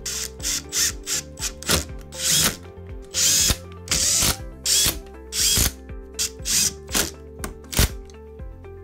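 Cordless Makita driver running the engine's side-cover bolts down in many short trigger bursts, some about half a second long, with background music under it.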